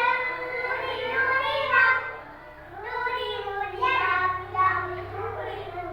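Young children singing, their voices rising and falling, with a short lull about two and a half seconds in.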